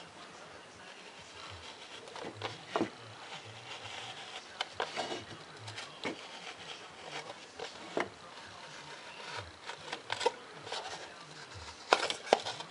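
X-Acto hobby knife blade cutting through a polystyrene foam cup: an irregular scratchy scraping with small creaks and clicks as the blade works along the line, and two sharper clicks near the end.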